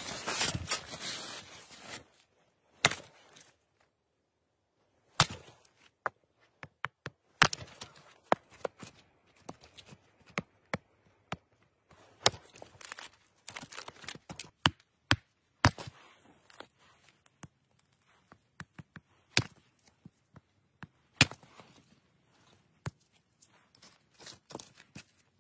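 Firewood being split with a hatchet on a chopping log: a long series of sharp, irregular chops, some loud and some light. About two seconds of fabric rustling come first.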